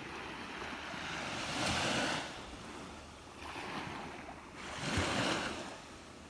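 Sea waves breaking on the shore: two surges about three seconds apart, each swelling to a rush of surf and then easing off.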